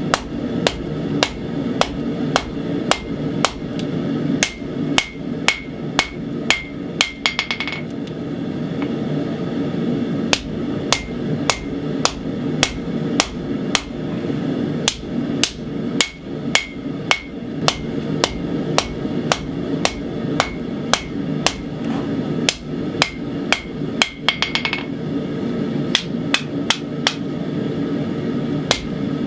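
Blacksmith's hand hammer forging hot 80CrV2 steel on an anvil, each blow ringing, at a steady pace of about one to two blows a second. Twice the hammer breaks into a quick run of light taps. The blows are drawing down the end of the tang into a mule's-foot handle.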